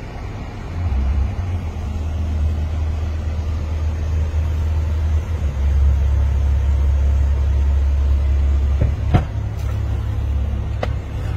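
Car heard from inside its cabin, a steady low rumble as it sits idling, with two sharp clicks near the end.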